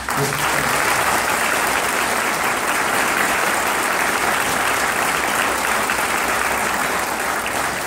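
A large audience applauding in an auditorium: steady clapping that begins all at once and starts to die away near the end.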